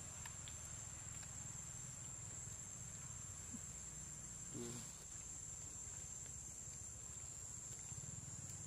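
Insects droning: a steady, high-pitched whine that holds without a break, with a brief faint call about halfway through.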